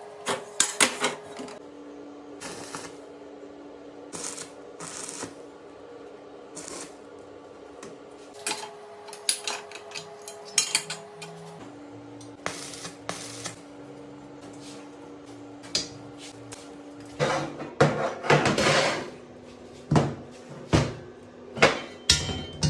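Irregular metallic clanks and knocks of metal parts being handled and struck, sparse at first and coming thicker and louder for the last few seconds.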